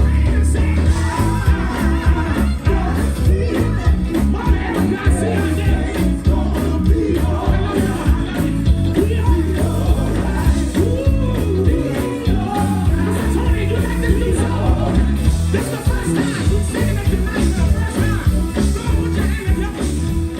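Live gospel praise music with singing over a heavy bass.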